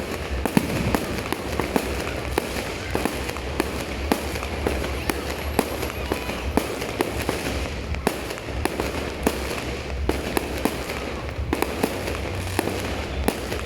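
Fireworks going off: many sharp pops and bangs at irregular intervals, several a second, over a continuous noisy background.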